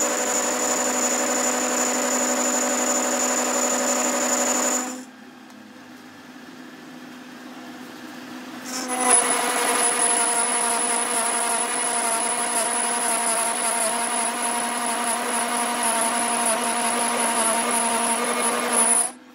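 Metal lathe turning a steel ring on a truck gear-block shaft, the cutting tool taking a cut: a steady machine hum with a high, thin whine. The sound drops away for a few seconds about five seconds in, comes back, and cuts off abruptly just before the end.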